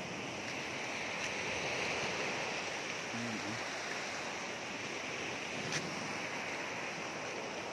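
Small sea waves washing and foaming over a rocky shoreline: a steady hiss of surf, with one brief click about six seconds in.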